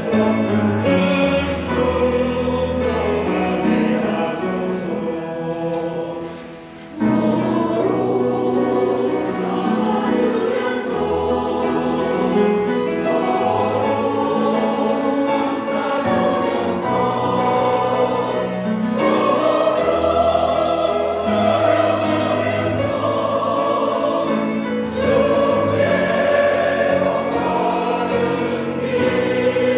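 A choir singing a Korean Christian hymn in sustained, full chords, with a brief break between phrases about seven seconds in.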